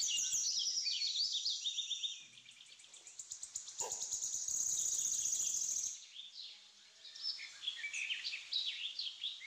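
Birds chirping and trilling in the background, with a spatula scraping as it stirs spice powder into onions in a nonstick kadai through the middle.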